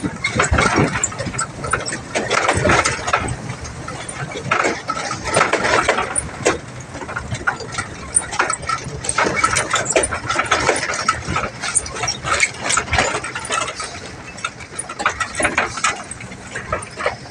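Boom truck's engine running as it descends a rough dirt road, with the loose wood in its bed and the truck body rattling and knocking over the bumps.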